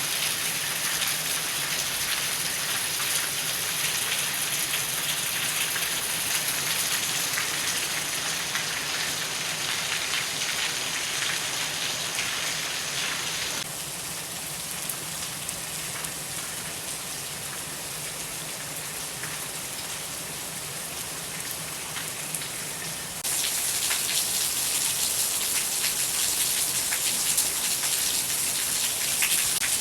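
Heavy rain falling steadily, a dense hiss of drops. It turns a little quieter about halfway through and comes back louder about two-thirds of the way in.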